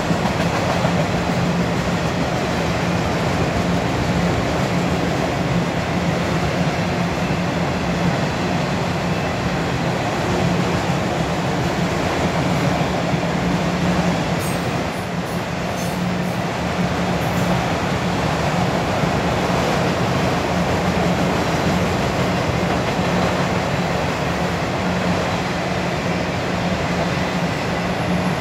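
Autorack freight cars rolling past on the track: the steady noise of steel wheels running on rail, with a low hum underneath throughout.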